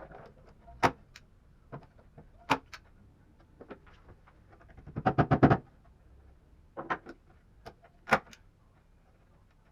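Sharp knocks and clicks of hard objects being handled, with a quick rattling run of taps a little after five seconds in.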